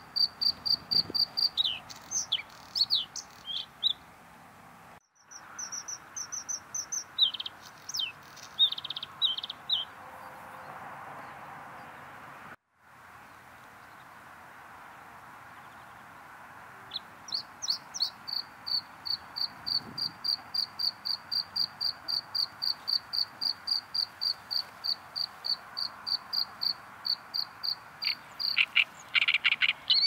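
A bluethroat (Luscinia svecica) singing. Quick varied phrases of high notes come first, then a pause of a few seconds, then a long run of one high note repeated about three times a second, breaking into varied notes again near the end.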